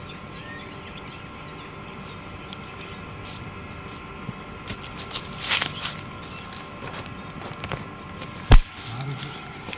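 A weighted hand fishing line being swung and thrown out into a river, over steady outdoor background noise with faint steady tones. About five and a half seconds in there is a cluster of clicks and a brief rush of noise, and near the end one sharp, loud knock.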